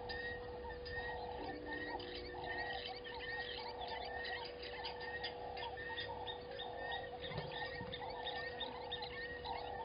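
Chorus of frogs calling at a waterhole: rasping calls repeating a little faster than once a second, a short higher chirp about twice a second, and a steady hum underneath.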